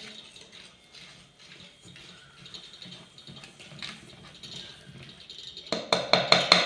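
Wire whisk stirring thick flour batter in a stainless steel bowl, with soft scraping at first. Near the end comes a quick run of sharp metal clinks, several a second, as the whisk strikes the bowl.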